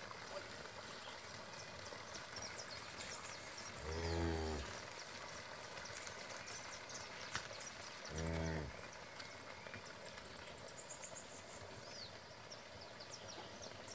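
A cow lowing twice, short low moos about four seconds apart, over faint outdoor background with small high chirps.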